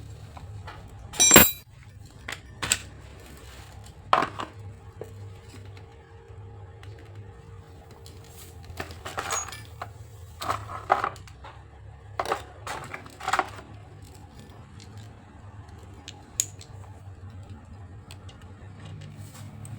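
Irregular metallic clinks and knocks of tools and alternator parts being handled on a workbench, the loudest about a second in, over a faint low hum.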